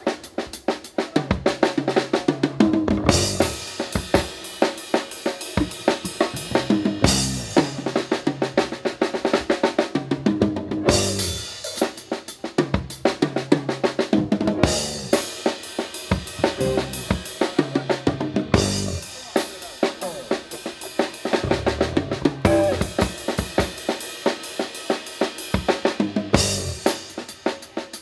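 Drum solo on a Yamaha drum kit: a dense, fast run of snare, bass-drum and cymbal strokes, with a lower rolling fill about every four seconds.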